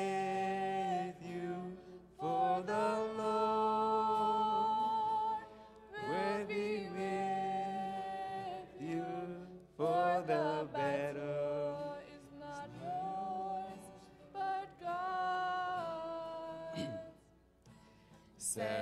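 Young male and female voices singing a scripture song together in long held notes, to a strummed acoustic guitar. The singing drops away briefly near the end.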